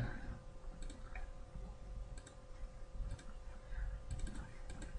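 Scattered faint computer mouse clicks, a handful spread over a few seconds, over a faint steady hum.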